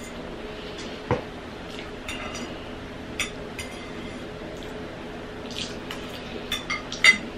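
Metal fork clinking and scraping against a stoneware plate while gathering spaghetti, with one sharp clink about a second in and a few lighter clicks near the end.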